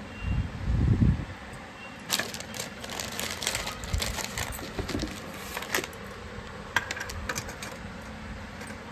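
Gold-polished metal bangles clinking and clicking against each other as they are handled, with a dull low thump near the start.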